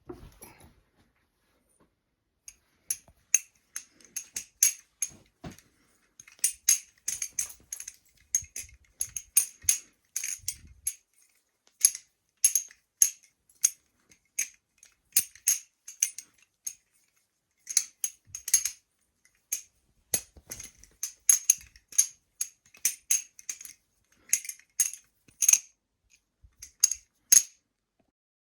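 Balisong (butterfly knife) being flipped: its handles, latch and pivots clacking and clicking in rapid flurries of metallic taps, with short pauses between tricks.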